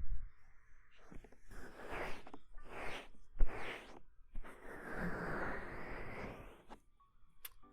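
Close-up ear-cleaning ASMR sounds on a binaural microphone: a run of soft, breath-like rustling bursts, several short ones and then a longer one about five seconds in.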